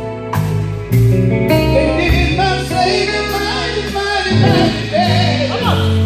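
Live gospel band playing with a steady beat, and a man singing into a microphone over it from about two seconds in.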